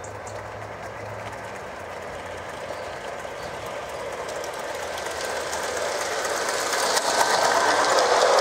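Gauge 1 model coal train, an 8F locomotive with loaded wagons, rolling along the track with a fast clicking of wheels over the rails. It grows steadily louder as the train comes close and the wagons pass by.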